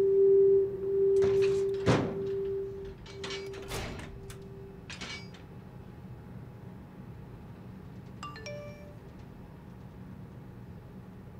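Background music, a held note with a few sharp strikes, fades out over the first five seconds and leaves a steady low machinery hum of a ship's engine room. A short electronic chime sounds about eight seconds in.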